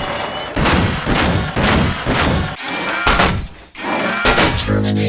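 A quick run of designed robot sound effects: about a dozen heavy mechanical thuds and clanks, many with a pitched ring after them. Near the end comes a short low electronic buzz.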